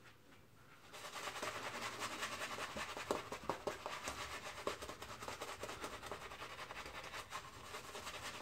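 Shaving brush lathering a bald scalp: a steady, quick scratchy swishing of bristles and foam rubbing on skin, starting about a second in.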